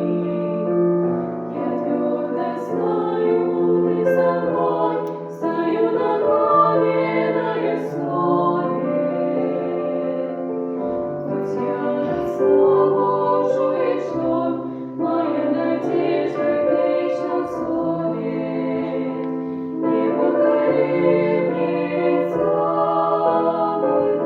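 Voices singing a Russian evangelical Christian song, with piano accompaniment.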